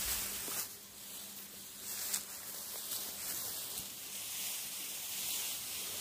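Dry harvested rice straw rustling as a cut sheaf of rice stalks is handled, in a few short rustles over a steady hiss.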